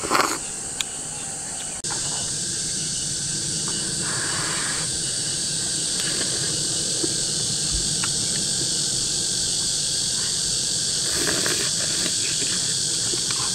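Steady, high-pitched chorus of insects, with a few short slurps of soup from a ladle: one at the start, one about four seconds in and one near the end.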